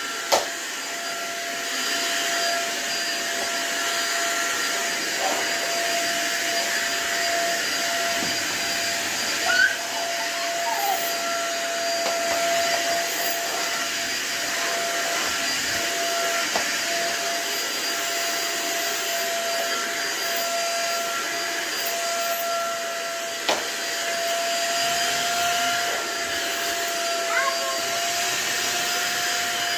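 Vacuum cleaner running steadily with a constant motor whine, with a few short knocks as it is pushed around.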